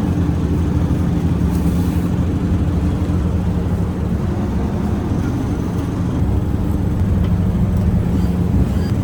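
Steady low motor drone, a constant engine-like hum that holds one pitch.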